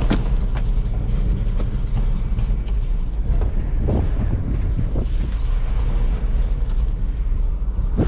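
Wind buffeting the microphone in a steady low rumble, with scattered short rustles and clicks from a plastic tarp being strapped down with hooked cords.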